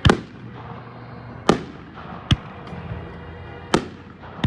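Aerial fireworks bursting: about five sharp bangs at uneven intervals, the first the loudest, several trailing off in an echo.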